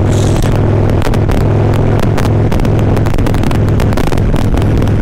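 Harley-Davidson Ultra Limited's V-twin engine running steadily while cruising, with wind rushing and buffeting on the helmet microphone.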